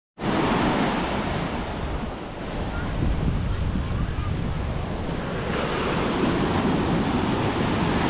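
Atlantic surf breaking in small waves and washing up the sand at the water's edge, with wind buffeting the microphone. A fresh wash of foam comes in more brightly about five and a half seconds in.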